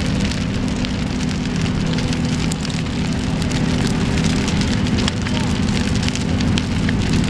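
A burning house crackling and popping as it burns fully involved, over the steady low drone of fire apparatus engines running.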